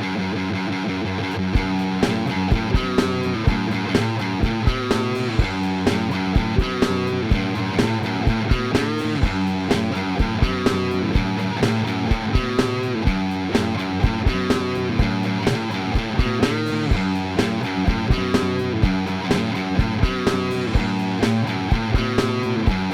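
Rock music with guitar; a steady drum beat with a low kick comes in about a second and a half in.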